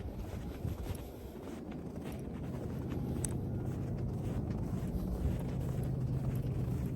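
Wind rumbling on the microphone, with a vehicle engine's low hum growing louder through the second half.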